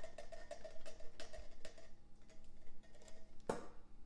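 A metal can of northern beans is tapped and shaken against a freezer bag to get the beans out, making a quick run of knocks, several a second, with a ringing note. The knocks stop about two seconds in. Near the end there is a single louder knock as the empty can goes into the sink.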